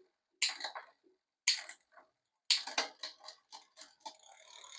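Bicycle gear shifter and rear derailleur being worked on an e-bike in a stand: three sharp clicks about a second apart, then a run of quicker ticks, and near the end the chain starts clattering over the rear cogs as the gears change.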